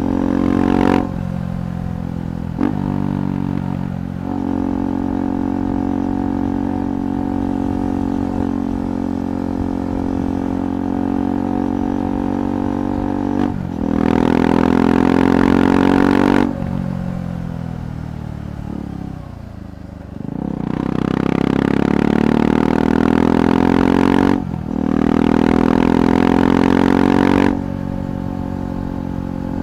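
KTM 390 Adventure Rally's single-cylinder engine through a Red Rooster aftermarket exhaust, on the move: running steadily, then louder twice as the throttle opens. Near the middle the revs fall away, then climb in a rising pull, with a brief break for a gear change before the second loud stretch.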